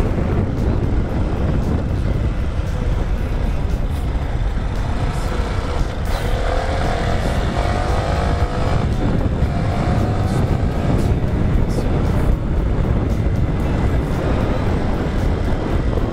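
Dual-sport motorcycle engine running while riding at road speed, mostly buried under heavy wind rumble on the helmet-camera microphone. In the middle the engine note can be heard climbing a couple of times.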